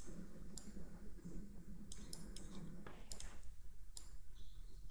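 Computer mouse clicking: a handful of scattered single clicks, some in quick pairs, over a faint steady hum.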